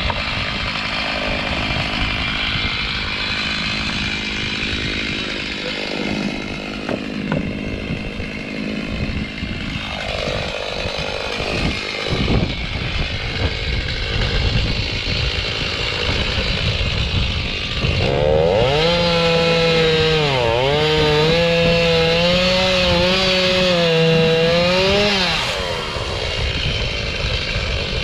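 Chainsaw running and cutting through dry dead pine wood. Over the second half the engine note stands out, wavering and dipping in pitch as the chain bites into the wood, then fades back about 25 seconds in.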